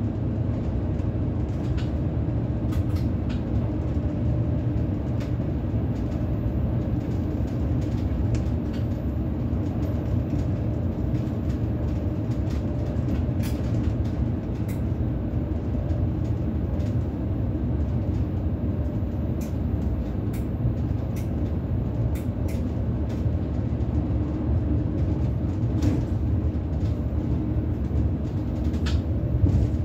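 Bombardier Twindexx (SBB FV-Dosto) double-deck electric train running along the line: a steady low rumble of wheels on rail, with a few scattered sharp clicks.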